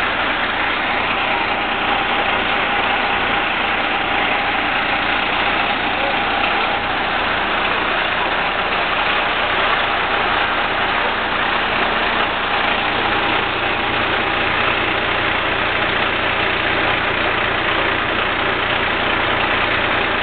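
Mobile crane's engine running steadily while it holds the tree; a low hum in its sound grows stronger about two-thirds of the way through.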